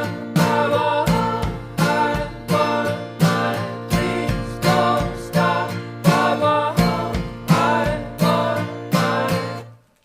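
Mellow folk-pop music led by strummed acoustic guitar, a strum about every two-thirds of a second over a held low note. The song stops suddenly near the end.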